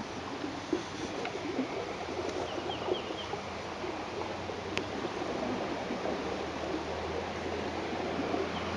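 Steady rushing of muddy floodwater flowing across a flooded yard. A bird chirps four times in quick succession about two and a half seconds in, and there are a few light clicks.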